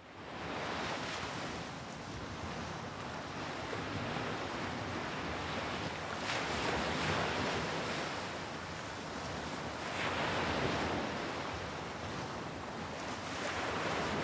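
Ocean surf: waves washing in as a steady rushing hiss that swells and eases every few seconds.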